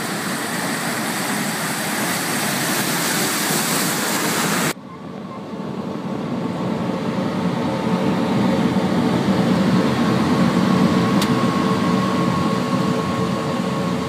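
Combine harvester and tractor running while corn is augered into a grain cart: a loud, steady, rushing machinery noise. About five seconds in it cuts abruptly to a duller, steady engine drone with a faint whine, as heard from inside a machine's cab.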